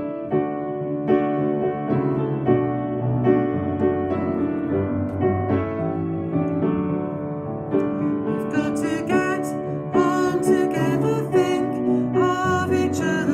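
Piano played with both hands, a steady run of chords and melody notes: the introduction and accompaniment to a song.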